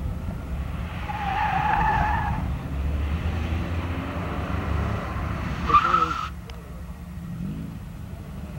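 Tyres of a Volvo station wagon squealing under hard cornering through an autocross cone slalom, over the steady drone of its engine. One longer squeal comes about a second in and a shorter, louder one near six seconds, after which the sound drops off suddenly.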